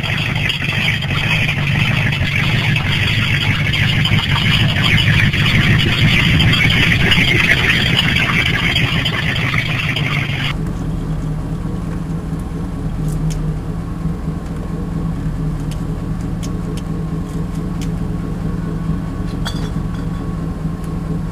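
Third-generation Pontiac Firebird's Chevrolet small-block V8 idling steadily through its exhaust, with a strong steady hiss over it. About halfway through it cuts to the same kind of idle heard close up at the tailpipe under the rear bumper, a cleaner steady low rumble.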